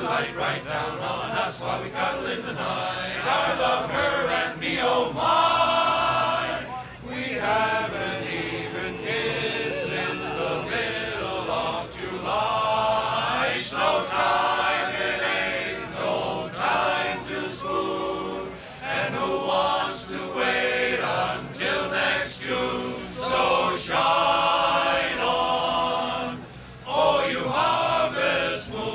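Men's chorus singing in harmony, held chords in phrases with brief breaks between them.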